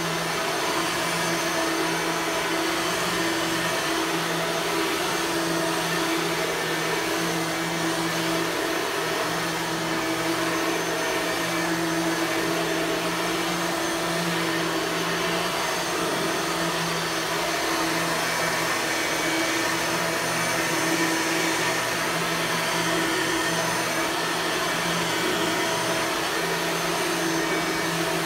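Blue 1998 Bissell 9-amp soft-bag upright vacuum cleaner running steadily, a constant motor whine over the rush of air.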